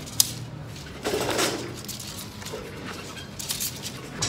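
Arrows being pulled out of a target boss by hand: a sharp click of the shafts knocking together about a quarter second in, then rustling scrapes as they come free, about a second in and again near the end.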